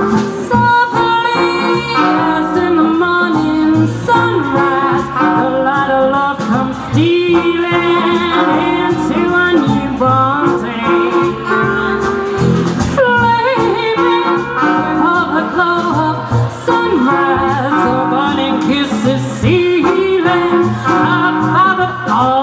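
Swing jazz band playing live, an instrumental break with trumpet and clarinet over double bass and rhythm section.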